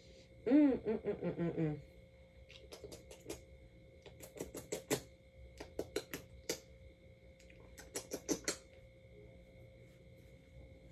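Quick lip-smacking kisses on a baby's foot, coming in about four clusters of sharp smacks. The clusters follow a brief pulsing vocal sound about half a second in.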